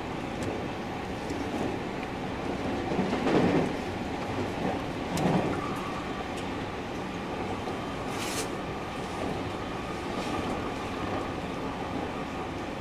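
JR Central 313 series 1100-subseries electric train running, heard from on board: a steady rumble of wheels on rail, with two louder bumps about three and five seconds in. A faint steady whine joins after about five seconds, and there is a brief hiss near eight seconds.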